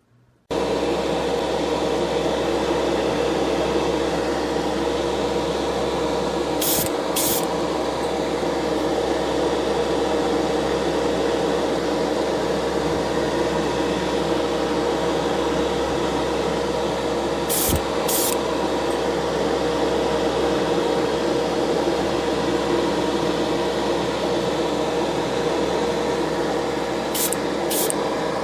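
Spray painting: a steady hiss and hum from the spray equipment, starting about half a second in. Three times, a pair of short, high bursts of spray sounds over it.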